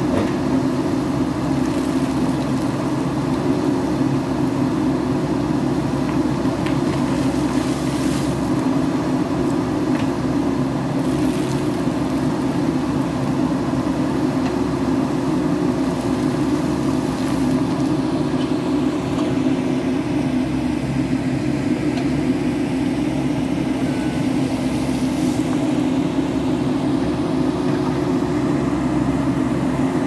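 Diesel engine of a JCB backhoe loader running steadily under load at a constant pitch while the backhoe arm digs.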